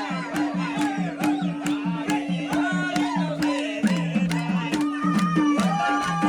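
Nepali folk song: a singer's melody over a steady drum beat of about four strokes a second and a held low drone.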